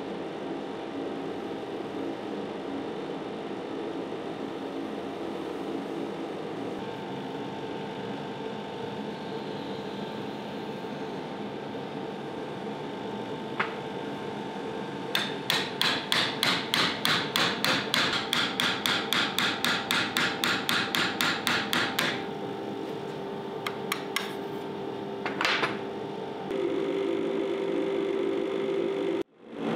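A steady mechanical hum, with a run of about twenty-five rapid, evenly spaced knocks, three to four a second, lasting some seven seconds midway. A few single clicks follow.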